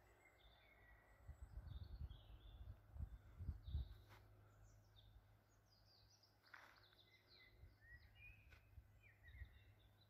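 Faint birdsong: scattered short chirps and sweeping calls from several small songbirds. Low rumbling on the microphone in the first few seconds.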